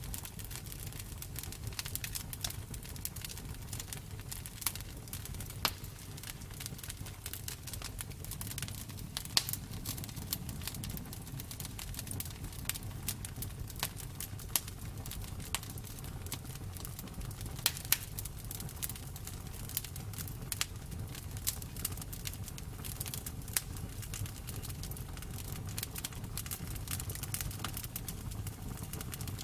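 Bonfire crackling: irregular sharp pops and snaps, a few louder ones scattered through, over a steady low rumble of burning.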